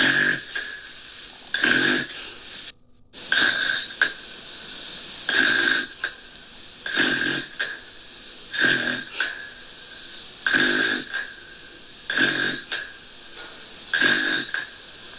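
Gentle, rhythmic snoring: a short snore about every two seconds, each lasting about half a second.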